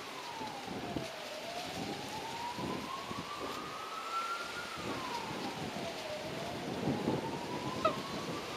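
A siren wailing slowly up and down, each cycle a quick drop in pitch followed by a slow climb over a few seconds, over the low rumble of an approaching diesel railcar.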